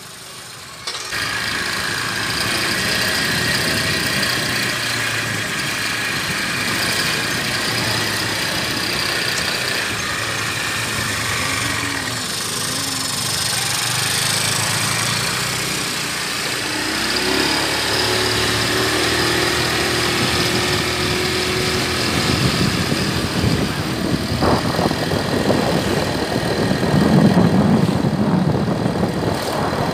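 Motorcycle running along a street, heard from the pillion seat: a steady engine and road noise mixed with wind on the microphone. It comes in about a second in and turns rougher and louder in the last few seconds.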